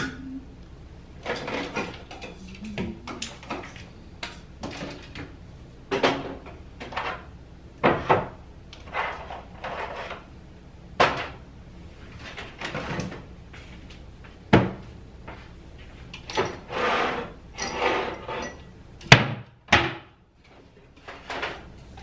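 Wall cabinet doors and seasoning bottles, jars and cans being handled: a string of knocks, clinks and clatters as the containers are taken down from the shelf and set on the counter, with a rattling patch late on and one sharp, loud knock near the end.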